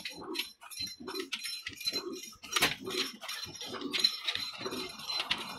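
Old Ruston Hornsby 22 HP diesel oil engine running slowly and evenly, with a regular low puff about twice a second and sharp metallic clicks and clinks from the running gear.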